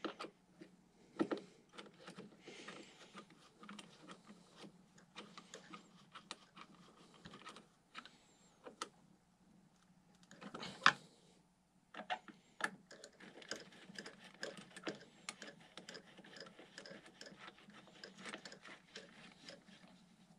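Small clicks, taps and light scraping of hands handling bolts, washers and the faceplate at a model plane's electric motor mount, with one louder knock near the middle.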